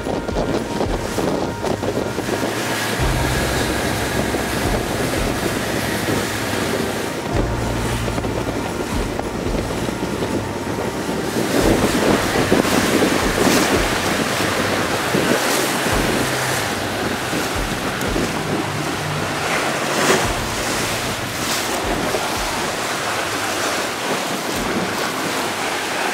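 Wind buffeting the microphone over the rush and splash of water along the hull of a small inflatable motorboat under way. It grows louder for a few seconds about halfway through.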